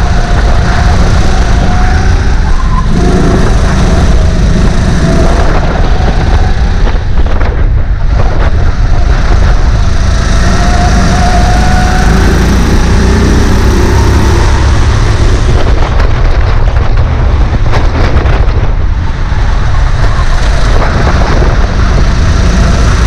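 Sodikart RX7 rental kart's 270 cc single-cylinder four-stroke engine at racing speed, its pitch rising and falling as it revs up and eases off through the corners, over a heavy low rumble.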